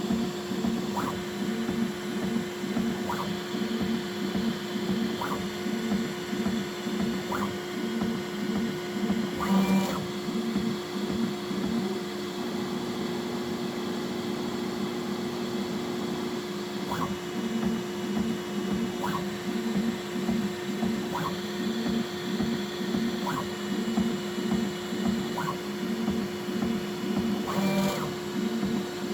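Bambu Lab X1C 3D printer running automatic bed levelling: stepper motors whir in pulses as the toolhead moves, over a steady fan hum, with a light click about every two seconds as the nozzle probes the bed. Two louder short rattles come about ten seconds in and near the end.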